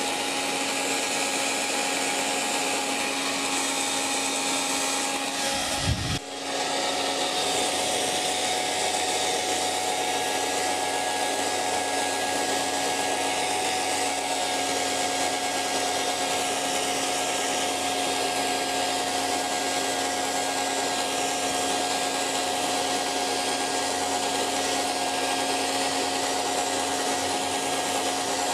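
Hair dryer running steadily: a constant rush of blown air with a steady motor hum and whine. About six seconds in there is a brief low thump and a short dip in the sound.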